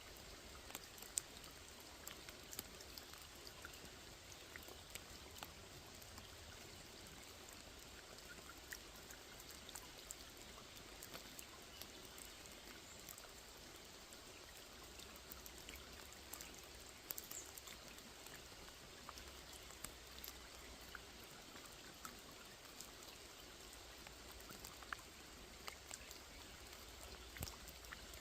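Quiet, steady rain falling on a small lake: a soft hiss with many scattered drop ticks.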